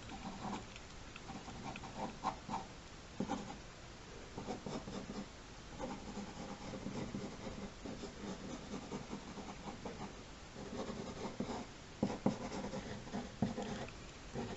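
Drawing on paper: short, irregular scratching strokes of a sketching tool laying down lines and shading.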